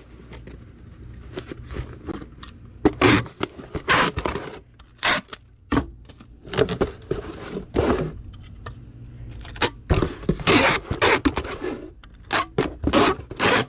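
Irregular scraping, rustling and knocking of a cardboard shipping box and packing materials being handled, in short separate bursts.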